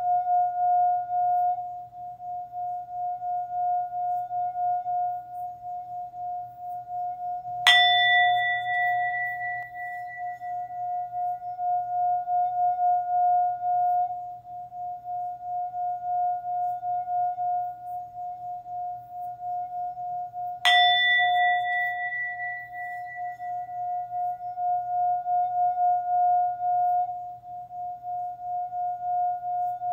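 Singing-bowl meditation music: one bowl sustains a steady ringing tone with a slow wavering pulse, while a higher-pitched bowl is struck twice, about thirteen seconds apart, each strike ringing out over a few seconds.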